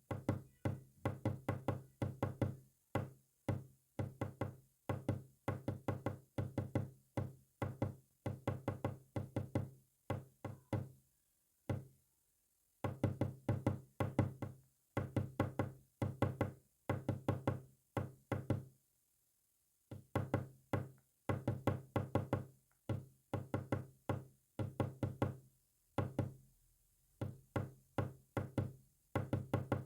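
Morse code sent as a rapid string of short, low-pitched knocking pulses, several a second, in runs broken by a few pauses of about a second.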